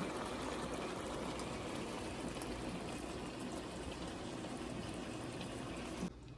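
Chicken pieces sizzling as they fry in oil in a pan, a steady crackling hiss that cuts off abruptly near the end.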